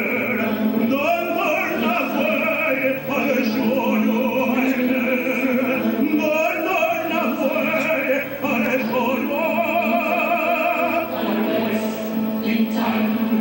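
Operatic singing over classical music accompaniment, heard on a home camcorder recording of a stage performance. About two-thirds of the way through, a sung note is held with a wide vibrato.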